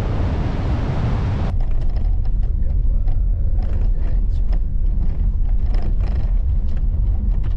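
Wind and surf noise on the microphone that cuts off abruptly about a second and a half in. It gives way to a moving vehicle's low road rumble, heard from inside, with frequent small clicks and rattles.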